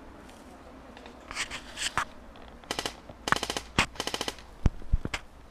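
Airsoft guns firing several short full-auto bursts of rapid clacks, followed by a couple of single sharp knocks near the end.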